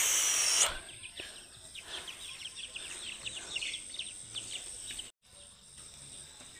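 Ducklings peeping in a quick run of short, high chirps over a steady high insect drone. A brief burst of rustling noise comes right at the start.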